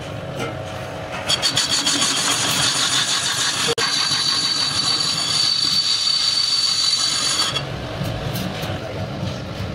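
Metal lathe turning a metal ring in its three-jaw chuck, with the cutting tool taking a cut. A high-pitched metallic ringing joins the running machine about a second in and stops about two seconds before the end, leaving a lower rumble.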